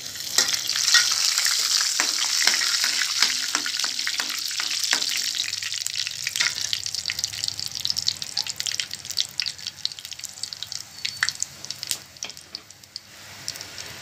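Whole spices (bay leaves, cinnamon, cloves and cardamom) with cumin seeds sizzling and crackling in hot oil in a frying pan. Loudest just after they go in, then the sizzle slowly dies down while sharp pops go on.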